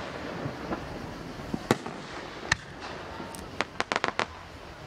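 Aerial fireworks going off: a loud bang near two seconds in, another about a second later, then a quick run of sharp pops near the end.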